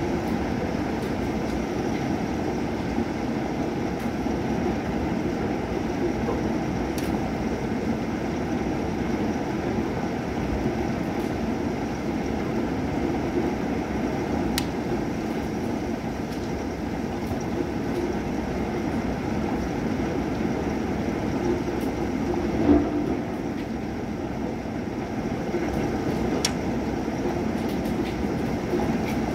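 Thunderstorm rain falling steadily: an even rushing sound with scattered sharp ticks of drops and one brief louder knock about three quarters of the way through.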